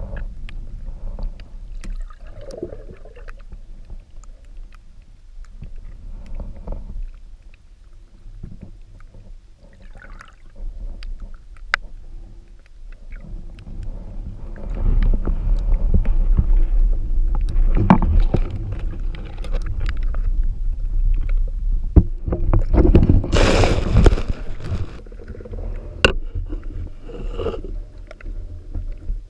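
Muffled underwater sound picked up by a submerged camera: a low steady rumble of moving water with scattered sharp clicks. It grows louder about halfway through, with a brief rushing surge a little over 20 seconds in.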